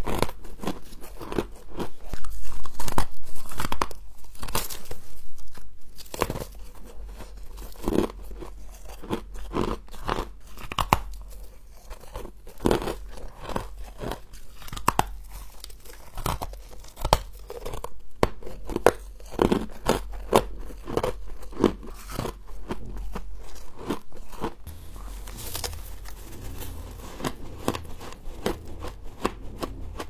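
Repeated crunching bites and chewing of fluffy humidifier frost scraped from a freezer, with the loudest crunches a few seconds in.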